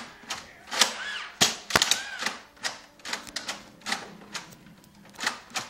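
Nerf blasters being fired again and again: a string of sharp clicks and snaps, a few each second, as the spring plungers launch foam darts.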